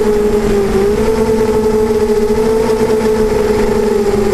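Beecrazy Daredevil FPV racing quadcopter's motors and propellers whining steadily, heard from its onboard camera with rushing wind. The pitch dips briefly about a second in and again near the end as the motors slow.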